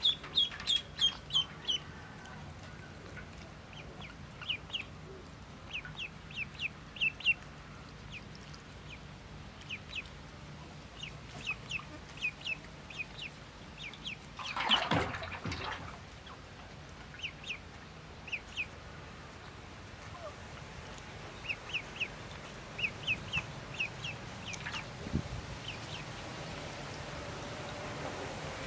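Ducklings peeping: short high-pitched peeps in quick runs of several, coming on and off, with one brief louder noise about halfway through.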